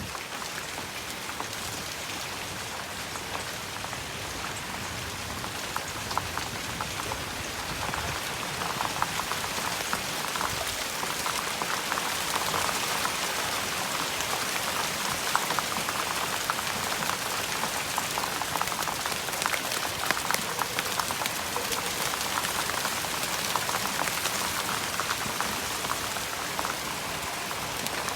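Hailstorm: heavy rain and hailstones pelting Japanese acer plants, a dense steady hiss full of sharp ticks that grows heavier about eight seconds in.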